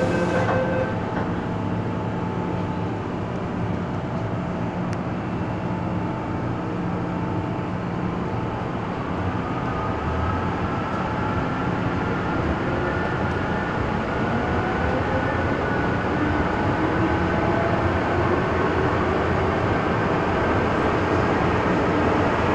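Inside an MTR M-Train electric multiple unit: the sliding doors finish closing about half a second in, then the train starts off. From about nine seconds in, the traction motors give a whine that rises slowly in pitch over a steady rumble, growing louder as the train gathers speed.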